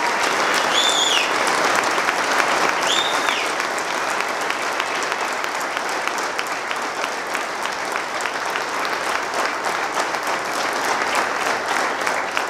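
Audience applauding steadily, a dense patter of many hands clapping. Two short whistles ring out from the crowd, about one and three seconds in.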